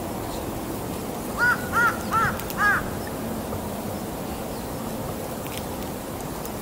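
A crow cawing four times in quick succession, a little over a second in, over a steady background hiss.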